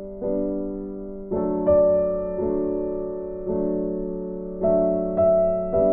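Background music of slow, gentle piano chords, a new chord struck about once a second and left to fade.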